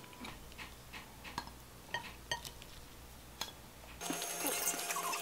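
Light clicks and clinks of metal chopsticks against a ceramic salad bowl, scattered about every half second. About four seconds in, a louder background with a steady hum comes in.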